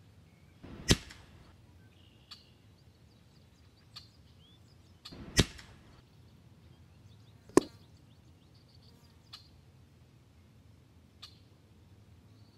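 PCP air rifle shots (EDgun Leshiy 2): three sharp cracks, about a second in, at about five and a half seconds and at about seven and a half seconds, with a few much fainter clicks between them and faint bird chirps.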